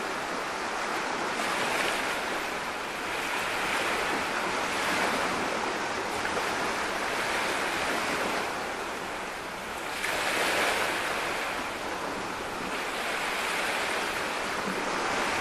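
Sea surf washing ashore: a steady rush that swells and fades every few seconds.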